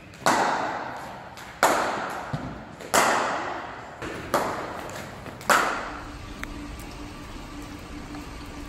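Cricket bat striking the ball in indoor nets: five sharp cracks about a second and a half apart, each echoing in the large hall. Near the end they give way to a faint steady hum.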